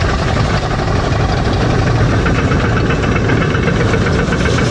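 Caterpillar D11 bulldozer's diesel engine running steadily, with a rapid, even knocking.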